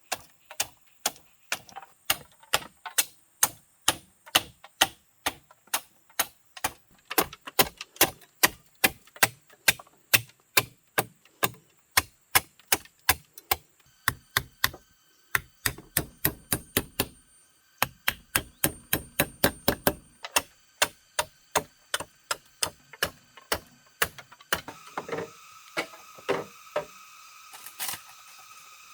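A fast, regular run of sharp knocks or taps, about two to three a second, pausing briefly once and thinning out near the end.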